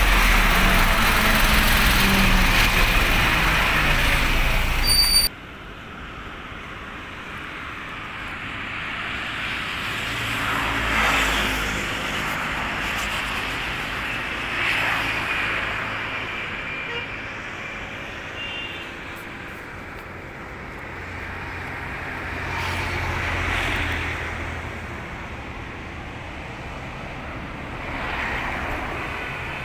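Road and wind noise from a moving vehicle on the bridge, which cuts off suddenly about five seconds in. Then quieter road traffic passing on the bridge, swelling and fading as vehicles go by, several times.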